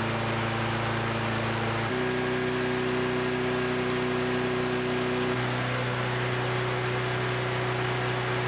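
Small single-cylinder four-stroke lawn mower engine running steadily over a wide hiss, with its shampoo-filled crankcase foaming and spewing white foam. Its steady note jumps abruptly in pitch about two seconds in and again past the halfway mark.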